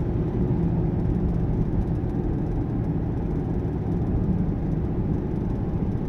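Steady low rumble of a car driving, heard from inside the cabin.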